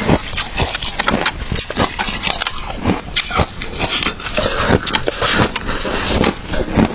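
Shaved ice being bitten and chewed close to the microphone, a steady run of loud, sharp crunches and crackles.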